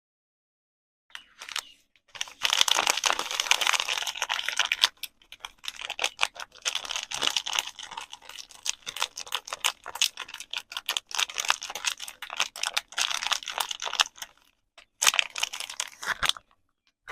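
Soap packaging being handled and unwrapped: crackly crinkling and rustling thick with quick clicks and taps, in bursts with brief pauses. It starts about a second in and stops just before the end.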